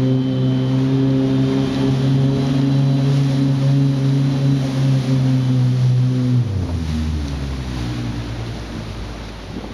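Kawasaki jet ski engine running at a steady high pitch, then dropping abruptly to a lower pitch and fading about two thirds of the way through as the throttle comes off.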